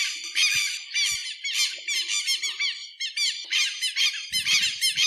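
Southern lapwing (tero) calling: a steady run of loud, high-pitched repeated notes, about two to three a second.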